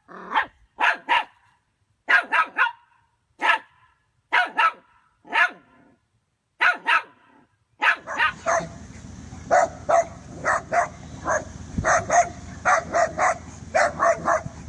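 A dog barking repeatedly in sharp, separate barks, often in pairs. About eight seconds in the sound changes to faster barking, two to three barks a second, over a steady background hiss.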